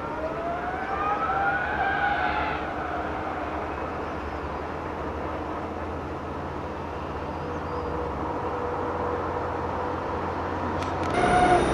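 Distant Ferrari Formula One V10 engine rising in pitch as the car accelerates over the first couple of seconds, then running at a steadier note. A sudden louder burst of sound near the end.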